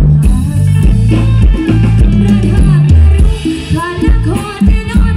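Live music from an Isan pong lang band, with a steady drum-kit beat under a strong bass line and a melody on top.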